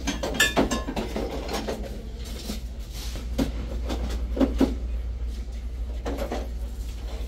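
Steady low rumble with a few knocks and a ringing clink, as glass and ceramic ornaments are picked up and set down on a store shelf.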